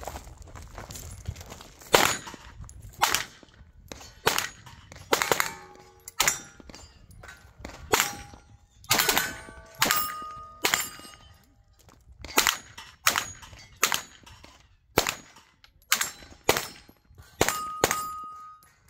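Pistol-caliber carbine firing a long string of shots at steel plates, with the clang and ring of hit plates following many of the shots. The shots start about two seconds in and come every half second to a second, in short runs with brief pauses between.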